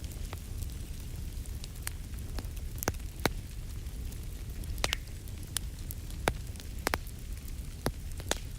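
Wood fire in a fireplace crackling, with irregular sharp pops and snaps, a few a second, over a steady low rumble.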